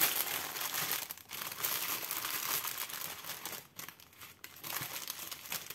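Small plastic zip bags of diamond-painting drills crinkling and crackling as they are handled and sorted. The crackle is busiest in the first three seconds and lighter near the end.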